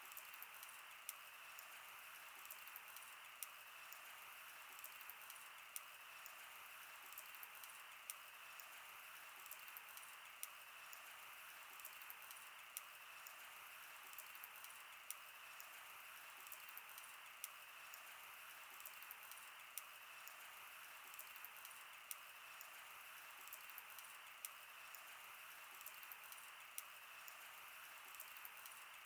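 Wood fire burning: frequent small sharp crackles and pops over a soft, steady hiss.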